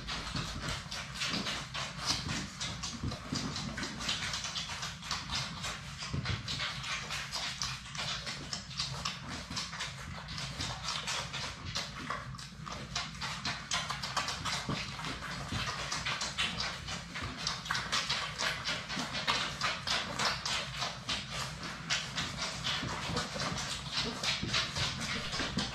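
A litter of Labrador Retriever puppies nursing from their standing mother, with rapid, continuous wet suckling and smacking clicks.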